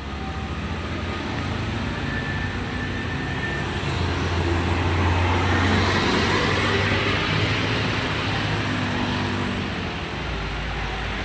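Road vehicle passing by, its engine and road noise swelling to a peak about halfway through and then fading.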